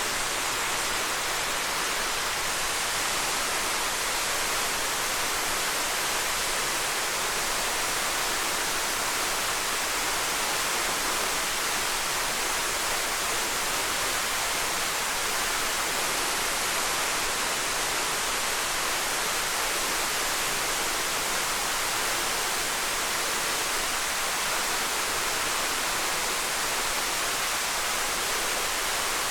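Small waterfall splashing in a steady, even rush of water, with most of its sound in the upper range and little low rumble.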